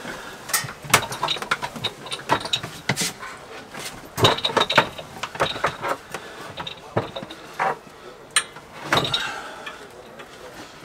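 Irregular knocks, clunks and scrapes as a portable scuba air compressor is handled and shifted into place on a wooden shelf; the compressor itself is not running.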